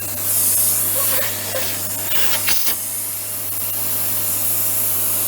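Nilfisk Elite vacuum cleaner running with its tube freshly cleared of a clog: a steady motor whine under a rush of air, with louder gusts of air about half a second and two and a half seconds in. Its sound is now much better, without the abnormal noise the blocked tube caused.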